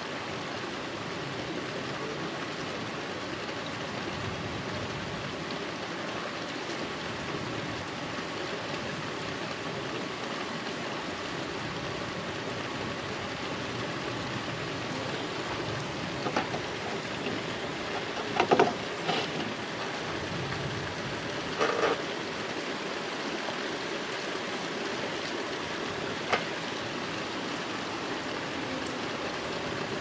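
Steady summer rain falling on trees and ground, an even hiss. Midway there is a short cluster of brief, sharp sounds, the loudest of them about halfway through, then one more a few seconds later.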